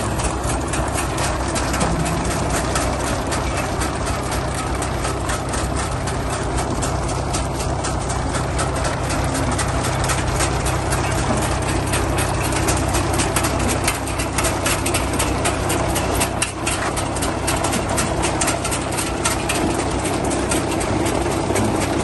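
A John Deere 5045 tractor's diesel engine runs steadily under load while the potato harvester it pulls clatters continuously, its chain webs and elevator rattling as they lift soil and potatoes.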